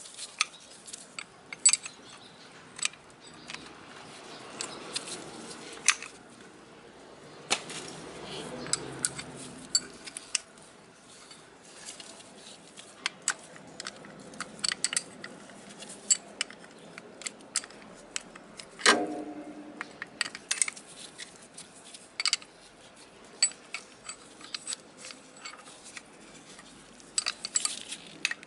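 Irregular light metallic clicks and clinks of hand tools and small metal parts being handled and set down, with one brief louder clack a little past the middle.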